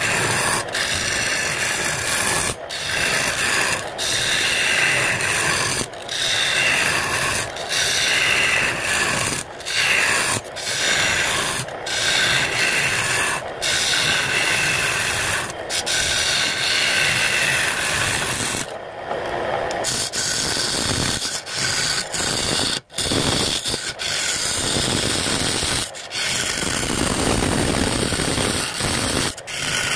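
A hand turning tool cutting into jackfruit wood spinning on a lathe: a steady scraping hiss, broken by short gaps every second or two, with a quieter stretch a little past halfway.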